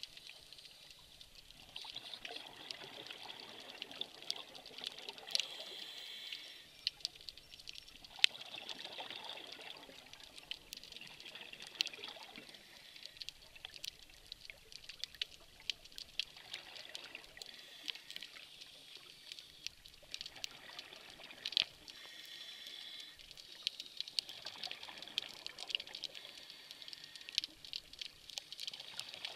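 Underwater sound of a scuba diver's regulator: exhaled bubbles rush out in bursts of a couple of seconds, with quieter gaps between them while the diver breathes in. A steady crackle of sharp clicks runs underneath.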